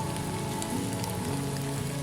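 Steady rain falling with scattered drops, over soft sustained low musical tones.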